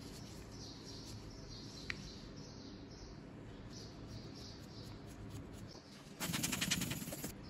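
Gloved hands handling a fabric pouch packed with pressed white powder: soft, faint rustling, then about six seconds in a loud crackly rustle lasting about a second.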